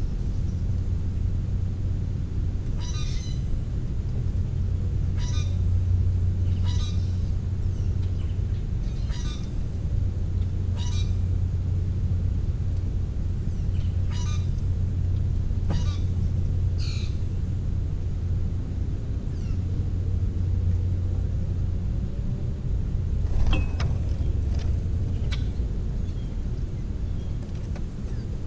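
Steady low rumble, with short, sharp bird chirps every second or two for the first half and one more call near the end.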